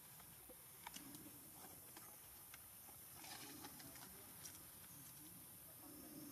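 Near-silent outdoor ambience: faint scattered ticks and rustles, with a few soft low coos about every two to three seconds.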